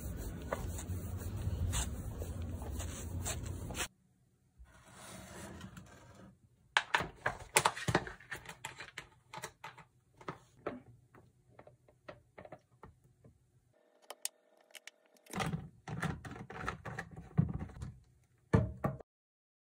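Handling a plastic dish-soap refill pouch and an empty plastic dish-soap bottle on a kitchen countertop. A steady noise for about four seconds gives way to a string of sharp clicks and knocks as the bottle is handled and set down.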